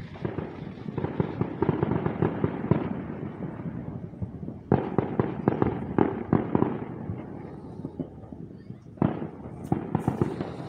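Fireworks going off in three volleys of rapid sharp cracks and pops: about a second in, near five seconds in, and near nine seconds in.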